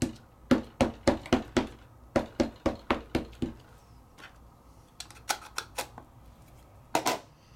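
Small ink pads dabbed repeatedly onto a stamp to ink it. About a dozen quick plastic taps come at roughly three a second, a few more come about five seconds in, and a short clatter comes near the end.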